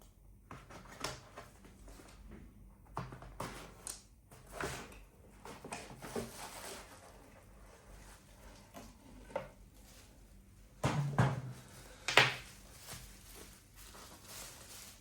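A parcel of phone parts being handled and opened: packaging rustles, with scattered light clicks and knocks. Two louder knocks come about three-quarters of the way through.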